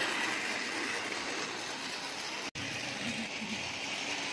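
Battery-operated toy train running around a plastic track, its motor and wheels giving a steady, even whirring hiss that cuts out for an instant about halfway through.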